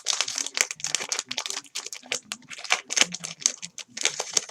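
A trading-card pack wrapper crinkling as it is torn open and handled, with quick, irregular rustles and cards shuffled through.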